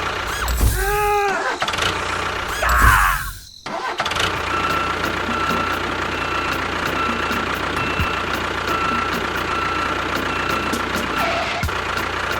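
A vehicle engine running steadily. About a second in comes a short pitched sound that rises and falls, then a loud burst, and about three and a half seconds in the sound cuts abruptly into a steady run.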